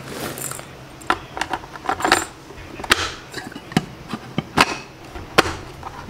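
About eight separate sharp clicks and clinks, irregularly spaced, from a coffee grinder and a small stainless steel bean cup being handled and set up.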